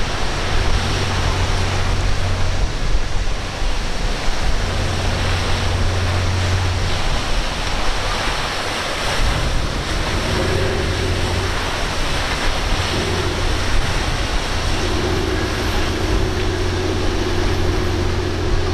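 Surf and open water rushing, with boat engines running under it: a steady low engine drone, joined by a higher steady hum that comes and goes from about ten seconds in.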